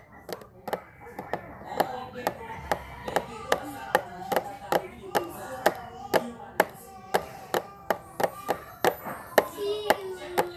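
A steady run of sharp taps, about two to three a second, over a quiet melody.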